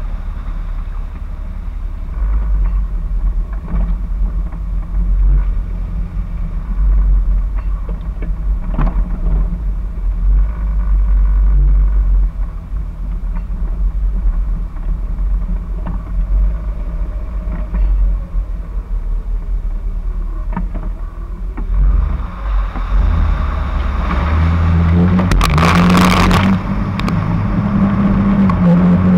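2001 Jeep Wrangler TJ's 4.0-litre inline-six driving with a loud, low exhaust rumble through its muffler-back-deleted exhaust. About 22 seconds in the engine revs up, and a few seconds later the tyres plough into a flooded stretch with a loud splash of muddy water.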